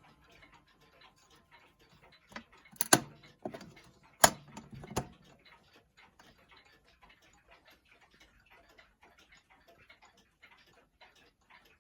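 Mechanical Seth Thomas chime clock movement ticking steadily. A few louder sharp knocks come about three and four seconds in.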